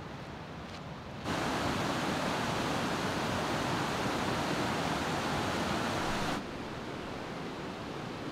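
Steady rush of running hot spring water. It jumps abruptly louder about a second in and drops back just as suddenly about five seconds later.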